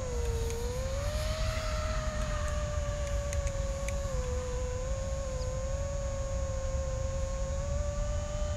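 iFlight Nazgul5 HD 5-inch FPV quadcopter in flight: its brushless motors and props give a steady whine whose pitch wavers gently up and down with throttle.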